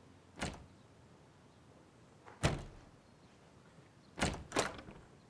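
Two single thuds about two seconds apart, the second the louder, then near the end a quick pair of clunks as a wooden door's handle and latch are worked and the door is opened.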